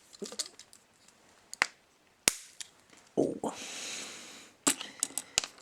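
Sharp small clicks and taps of hand tools and tiny wheels being worked off a 1:64 diecast toy car, with a short scraping hiss about midway and a quick run of clicks near the end.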